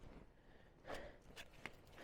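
Near silence with faint handling noise: a short soft rustle about a second in, then two small clicks, as a wrench is worked on a wheel's lug nuts.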